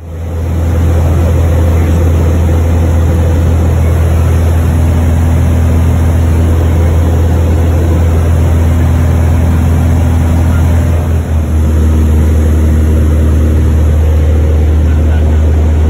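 Loud, steady low drone of a Mooney M20E's four-cylinder Lycoming engine and propeller, heard inside the cabin in flight. It dips briefly about eleven seconds in.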